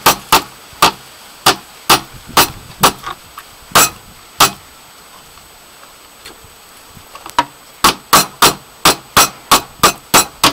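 Small wooden meat mallet pounding strips of raw chicken breast fillet on a cutting board: sharp, single blows about two a second, a pause of about three seconds in the middle, then quicker blows about three a second.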